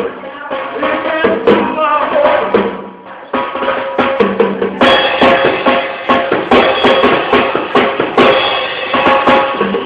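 Drum kit being banged on, with irregular hits on the drums and cymbals rather than a steady beat, making noise rather than playing a rhythm.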